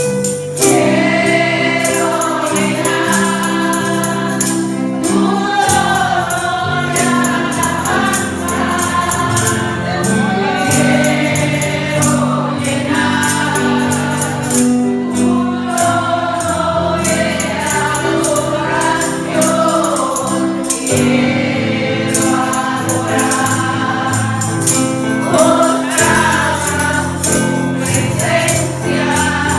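Congregation singing a gospel praise song with instrumental accompaniment and a steadily shaken tambourine.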